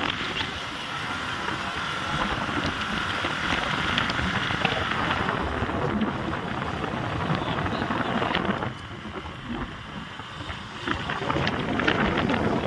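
Wind rushing over the microphone on a moving motorcycle, with the bike's engine running underneath. It eases for a couple of seconds past the middle, then picks up again.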